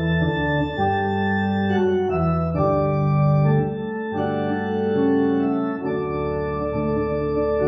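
Organ playing a slow prelude: sustained chords over a moving bass line, the chords changing every second or so.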